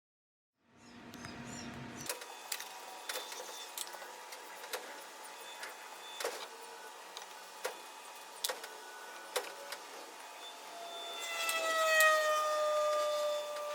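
Workshop power tool noise: a motor running with scattered sharp clicks and knocks. Near the end a motor whine slides slowly down in pitch and is the loudest part.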